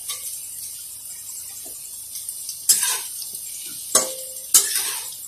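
Spatula stirring and scraping fried roti pieces in a metal kadhai, with three sharp clanks against the pan from about two and a half seconds in, one of them ringing briefly.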